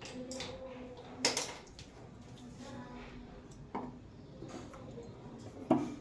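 Three sharp clicks or knocks of hard parts, the loudest about a second in and again near the end, with a softer one near the middle, over a faint steady hum.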